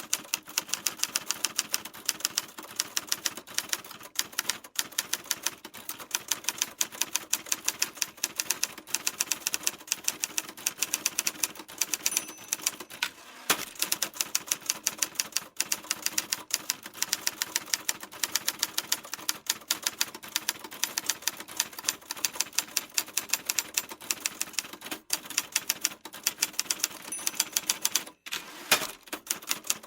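Typewriter keys struck in a fast, steady run of sharp clacks, several a second, broken by a few short pauses.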